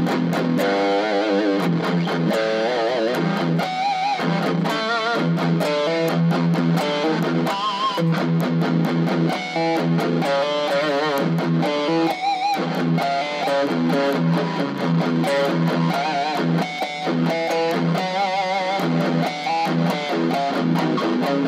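Distorted Fender Stratocaster electric guitar playing a riff: quick picked, palm-muted low notes mixed with ringing higher notes held with a wavering vibrato.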